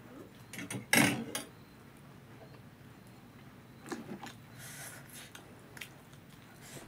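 Metal spoon and fork clinking and scraping against a plate, with one loud clatter about a second in and a few lighter clinks later.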